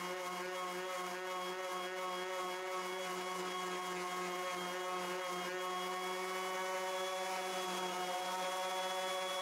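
A 125 mm random orbital sander running on a board of pallet wood with a Mirka abrasive disc: a steady motor whine over a low hum, its pitch holding constant throughout.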